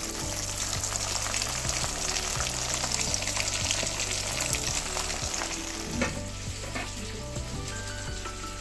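Pieces of meat frying in hot oil: a dense sizzle with crackles that dies down about two-thirds of the way through, with a sharp click as it fades. Soft background music runs underneath.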